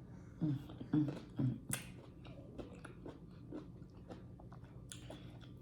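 Close-up eating sounds: fruit being bitten and chewed with wet mouth clicks and smacks, with three louder short low sounds in the first second and a half.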